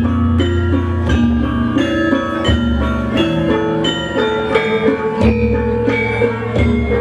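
Javanese gamelan ensemble playing: struck bronze metallophones sound a running melody of short ringing notes over low, sustained gong tones.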